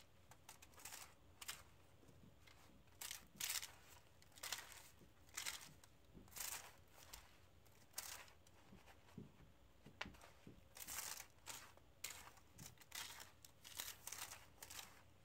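Faint, irregular crinkling of the aluminium foil lining a baking pan as a hand mixes and presses buttered cookie crumbs into it.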